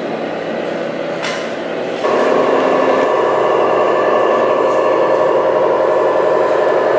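Radio-controlled scale model trucks running with a steady engine sound. About two seconds in it changes and gets louder with the orange Tamiya Globe Liner tractor and tanker trailer.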